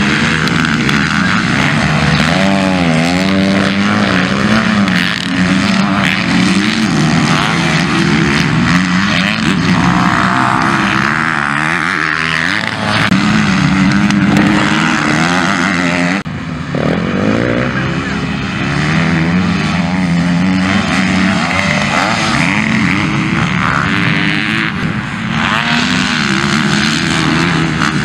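Several MX2 motocross bikes racing past, their engines revving up and down through the corners and gear changes. The sound breaks off and picks up again about halfway through.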